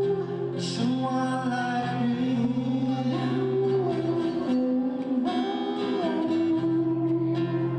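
Live acoustic music: acoustic guitars playing chords under a harmonica melody of long held notes that slide from one pitch to the next.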